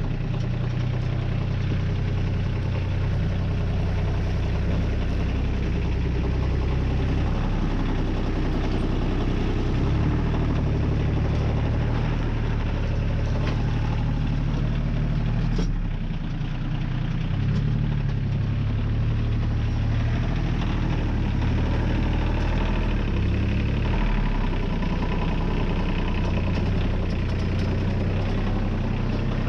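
Compact tractor engine running steadily while the tractor pulls a rear grader blade across loose ground. Its low note shifts a few times, and there is one sharp click about halfway through.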